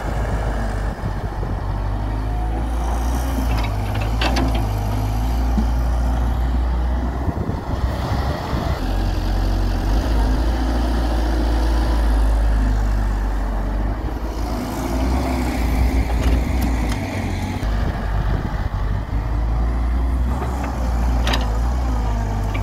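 Hyundai Robex 1300W wheeled excavator's diesel engine running under load while digging and loading soil. Its low note steps up and down as the arm and bucket work, with a couple of sharp knocks, one about four seconds in and one near the end.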